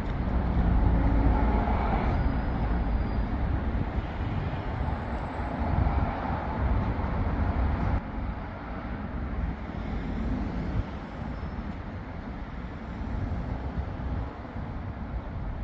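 Road traffic going by: a steady rumble of passing cars, loudest in the first half and easing after about eight seconds.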